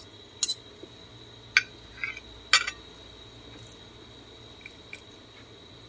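Metal fork clinking and scraping against a plate while eating, a few sharp clinks in the first three seconds.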